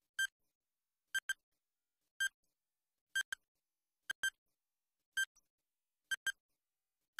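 Countdown-timer tick sound effect: short, sharp electronic ticks about once a second, several of them doubled into a quick tick-tick, with silence between.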